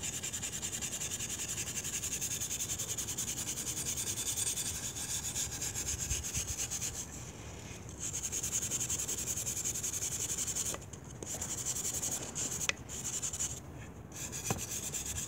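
A wire brush scrubbing rust off the wet steel head of a vintage Mann Edge Tool & Co single-bit axe in fast back-and-forth strokes, with three brief pauses. The rust has been loosened by a 24-hour vinegar soak and is coming off down to bare metal.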